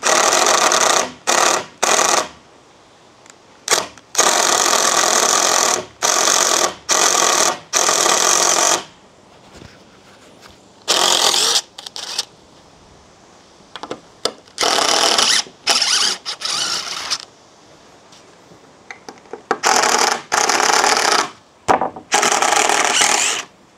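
Ratchet on a lifting strap being worked stroke after stroke, rapid clicking in spells of a second or two with short pauses, as the strap is tightened to pull a leaning shed back upright.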